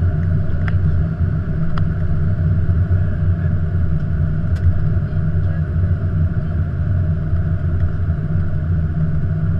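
Steady low rumble of an Airbus A330-200 flight deck on approach, heard from inside the cockpit, with a few faint clicks.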